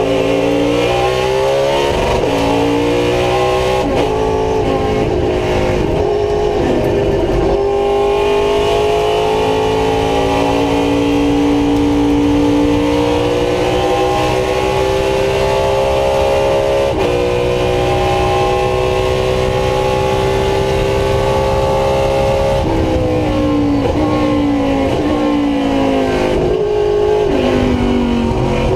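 V8 road-racing car's engine heard from inside the cockpit, running hard at speed. Its pitch steps and changes several times in the first few seconds as the driver shifts. It then climbs slowly through a long pull in gear, with one brief shift about two-thirds of the way through. Near the end it drops in a series of steps as the car downshifts.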